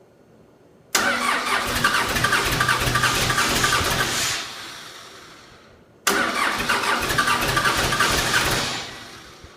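Starter cranking the freshly rebuilt Cummins 4BT four-cylinder diesel, a Case 1840 skid steer's engine, in two tries. Each begins suddenly about a second in and again about six seconds in, runs with a fast pulsing churn for about three seconds, then fades away as it spins down, without the engine staying running.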